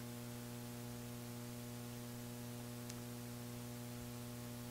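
Steady low electrical mains hum with a stack of overtones over a faint hiss.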